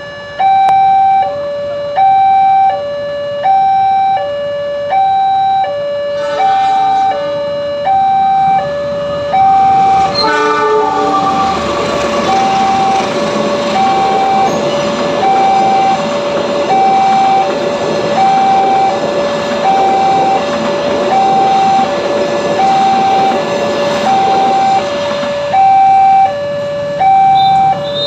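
Indonesian railway level-crossing warning alarm sounding a steady two-tone alternating chime. A train horn blasts twice, about six and ten seconds in, and then the train passes through the crossing with a loud rushing rumble that fades near the end while the alarm keeps going.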